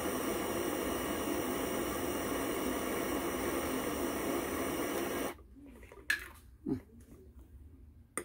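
Handheld butane torch hissing steadily as its flame reheats a solder joint on a brass pump tube, then shut off suddenly about five seconds in. A few light knocks follow.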